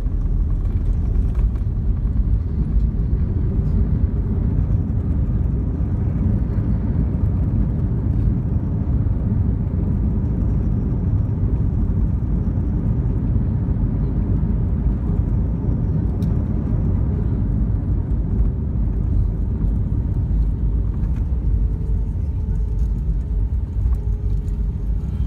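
Steady low rumble of an Airbus A319's engines and airflow heard inside the passenger cabin, with a faint steady tone riding over it, during the approach to landing.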